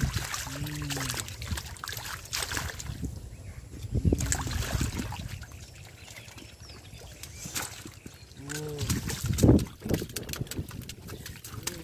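Hands sloshing and splashing in shallow muddy water while groping for fish, ending in a loud burst of splashing near the end as a catfish is lifted out thrashing.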